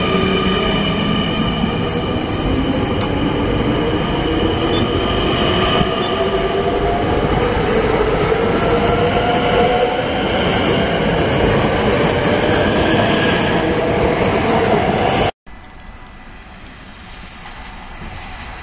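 NS Sprinter New Generation electric multiple unit pulling away, its traction motors whining steadily upward in pitch as it gathers speed. About fifteen seconds in the sound cuts off abruptly, giving way to a quieter, steady background.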